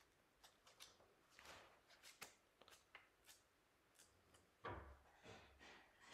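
Near silence with faint scattered clicks and brief rustling noises; a slightly louder rustle comes about three-quarters of the way through.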